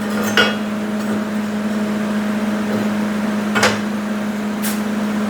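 Pieces of scrap steel plate clanking as they are handled and set down, three short knocks over a steady machine hum.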